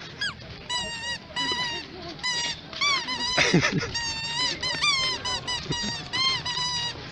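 Rapid series of short, high-pitched squeaks, several a second, some rising and falling in pitch.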